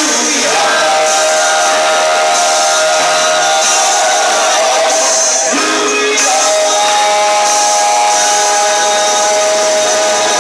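A man singing loudly into a handheld microphone over amplified backing music, holding two long notes of about five seconds each, the second starting about six seconds in.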